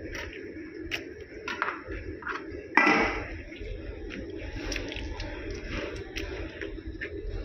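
Kitchen knife clicking and scraping on a plastic cutting board while raw chicken is deboned, with a loud metallic clatter about three seconds in as the knife is laid into a stainless steel bowl. A steady low background noise runs underneath.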